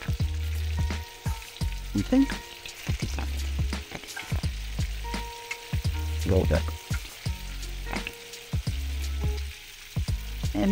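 Breaded chicken kebabs shallow-frying in hot oil in a frying pan: steady sizzling with dense, irregular popping and crackling.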